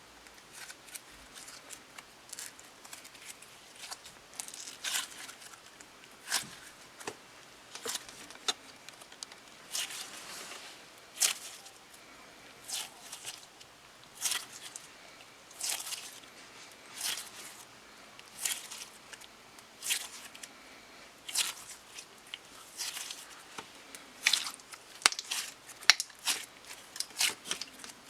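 Clear slime being worked by hand, squishing and crackling in short bursts roughly every second and a half, coming quicker near the end.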